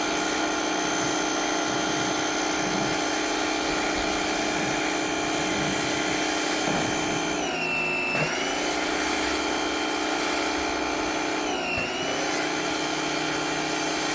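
An electric motor, of the kind in a power tool or shop vacuum, running steadily with a high whine. Its pitch sags briefly and recovers twice, about eight and twelve seconds in.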